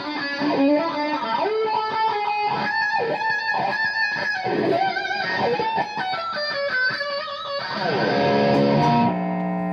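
Electric guitar playing a fast metal solo in quick runs of single notes. Near the end it is strummed into a chord that is left ringing.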